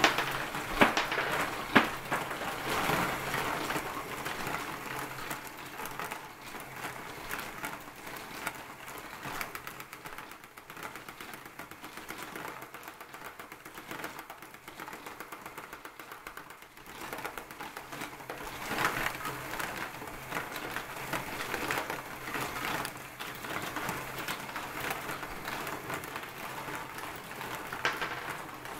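LEGO marble machine running: a steady clatter of balls and plastic parts clicking through the brick tracks and lifts, with a few sharp clicks about a second and two seconds in.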